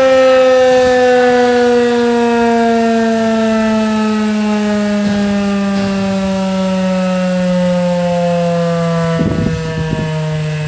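Federal Signal 2001-SRNB dual-tone outdoor warning siren winding down, its two-note wail gliding slowly and steadily lower in pitch as the rotor coasts.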